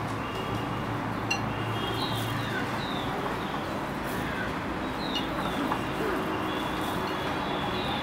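Small birds chirping in short, repeated calls over a steady low hum, with a sharp click about a second in.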